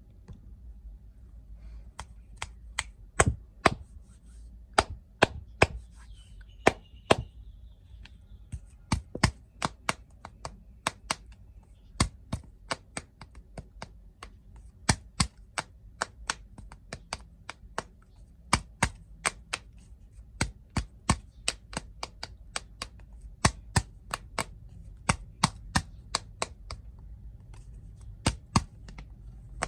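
Sharp, irregular taps and clicks, often in quick pairs and about one to three a second, from crunchy snacks and their packaging being handled.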